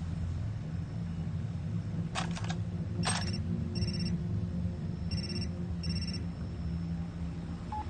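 A mobile phone ringing: three short electronic ring bursts a second or so apart, about four, five and six seconds in. A few sharp clicks come just before, and a low steady hum runs underneath.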